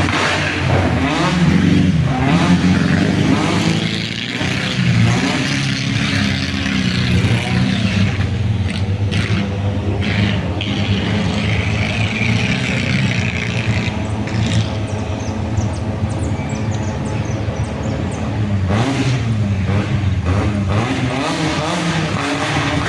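Buggy engine revving, its pitch rising and falling in the first several seconds and again near the end, with a steadier run in between.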